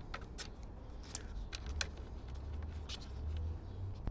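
Faint handling noise from a car door mirror assembly and its wiring being held and moved: scattered light plastic clicks and rubbing over a low steady rumble.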